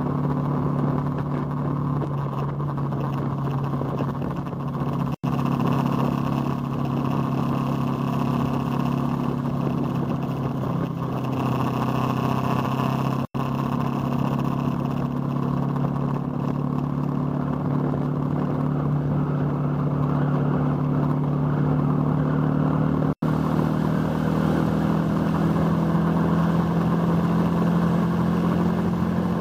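Motorcycle engine running at a steady cruising pace, heard from a bike-mounted camera together with wind and road noise. The engine note shifts slightly a few times, and the sound cuts out for an instant three times.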